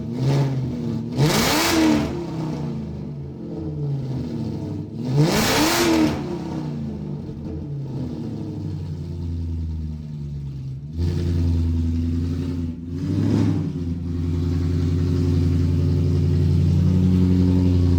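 BMW E39 V8 with a straight-piped dual exhaust, revved twice in quick blips about one and five seconds in, its pitch rising and falling back to idle each time. About eleven seconds in the exhaust note gets louder. A short blip follows near thirteen seconds, then it runs steadily.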